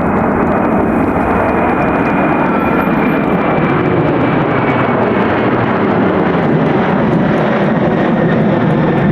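Boeing 747 jet engines running loud and steady as the airliner passes, with a thin high whine that sinks slightly in pitch.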